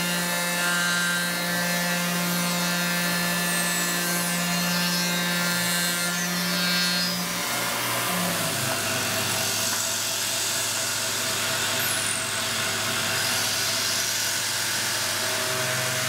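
Tormach CNC mill spindle running a carbide end mill through aluminium, a steady cutting whine with several tones. The pitch drops to a lower set of tones about eight seconds in.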